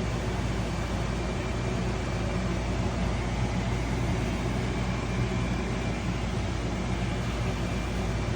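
Steady low mechanical hum under an even hiss, with no change or separate events.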